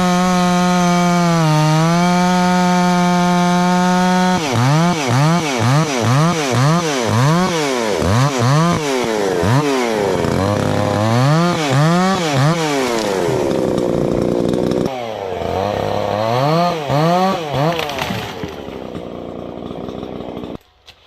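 Two-stroke chainsaw held at full throttle for about four seconds with a brief dip, then revved up and down over and over, about one and a half times a second. It drops away and falls quiet just before the end.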